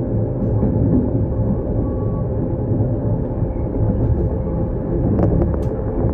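Trenitalia Intercity Notte sleeper train running, a steady rumble with a faint steady hum, and a few light clicks about five seconds in.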